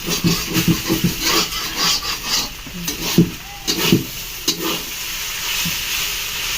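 A spatula stirring and scraping through a turmeric mixture frying in a pan, with quick scrapes for the first four and a half seconds, then a steady sizzle.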